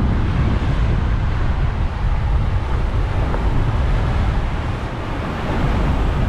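Strong wind buffeting the microphone on a sailing catamaran at sea in squally weather: a deep, steady rush that eases slightly about five seconds in.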